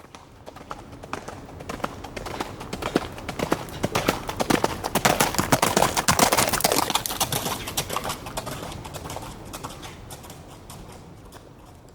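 A group of eight horses galloping past, a dense clatter of hoofbeats that grows louder as they approach, peaks about halfway through and fades as they move away.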